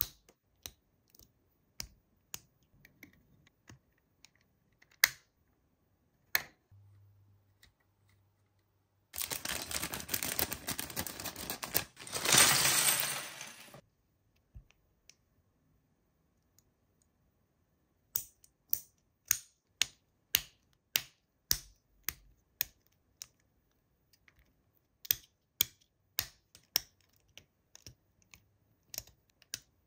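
Hands unboxing and handling plastic toys and packaging: scattered sharp plastic clicks and taps, a noisy burst of packaging handling lasting about five seconds near the middle, then a run of quick clicks.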